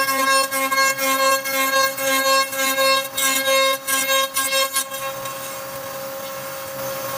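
Overhead router spindle whining steadily at high speed while its cutter hollows out a wooden plate blank, the cut coming in rapid rough bursts as the wood is pushed into the bit. About five seconds in the cutting stops and only the steady spindle whine remains.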